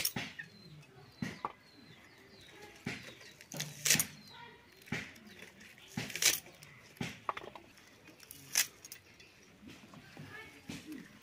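Vegetable stalks being sliced on a boti, a fixed upright kitchen blade: short, crisp cuts at irregular intervals, roughly one a second, some much sharper than others.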